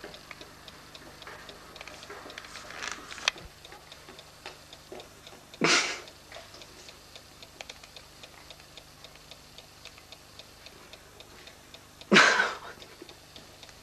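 A clock ticking steadily, with two short, loud rushing noises about six seconds and twelve seconds in.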